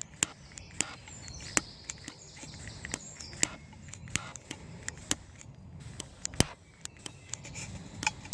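A lighter being struck again and again without catching: a sharp click roughly once a second, some louder than others. The lighter is failing to light.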